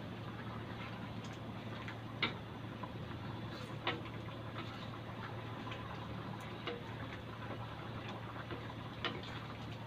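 A spatula stirring a thick pork stew in a stainless steel wok, with a few sharp clicks of the spatula against the metal pan, over a steady low hum.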